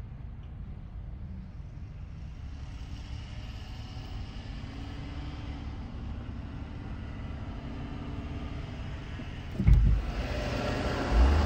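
Car cabin rumble of engine and tyres while driving, with faint wavering tones over it. About ten seconds in it jumps to a louder rush of wind buffeting the microphone.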